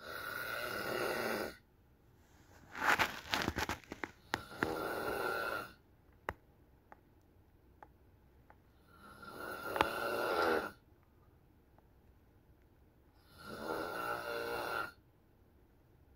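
A person snoring in their sleep: four long snores a few seconds apart, with quiet breaths between them. The second snore opens with a rapid rattle.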